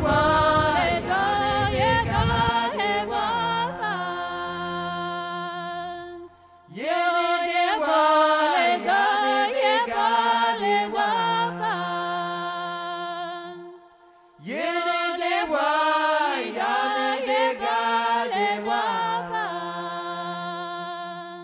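Background music: a chanted vocal line sung over a steady drone, in three repeated phrases, each dying away into a short pause before the next begins.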